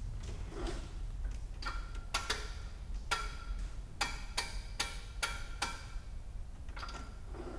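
About nine sharp metallic clicks with a short ring, coming unevenly, as the propeller is turned by hand to check the magneto timing.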